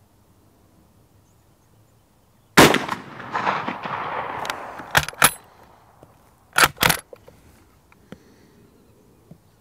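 A single shot from an 11mm Mauser Model 71/84 bolt-action rifle about two and a half seconds in, its echo rolling away over about three seconds. It is followed by metallic clicks and two loud clacks, the bolt being worked.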